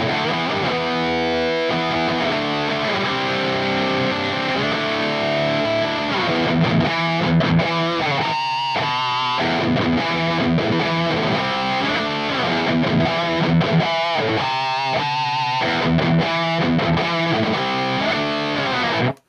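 Distorted electric guitar played through channel 4 of a Diezel VH4 tube amplifier, miked at a Celestion Vintage 30 speaker: continuous riffing with a few held single notes bent with vibrato, cutting off abruptly near the end.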